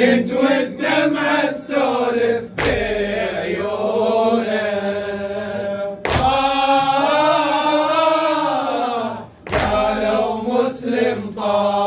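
A male reciter chanting a slow Arabic latmiya lament in long, wavering held notes. Three sharp thumps fall about three and a half seconds apart.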